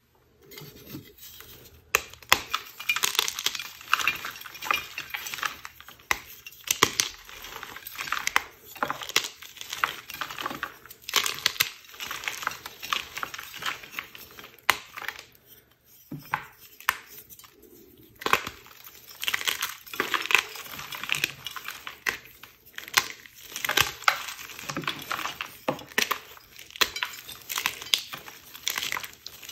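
Homemade gym chalk thins crushed and crumbled by hand in a bowl: crisp crunching and crackling in bursts, with a couple of short pauses past the middle. Recorded without an external microphone.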